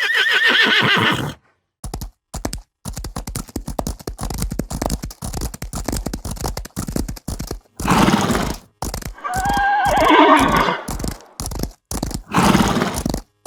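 Horse whinnying, a wavering high call right at the start and another about ten seconds in, with a long run of rapid hoofbeats in between and short breathy blasts around them.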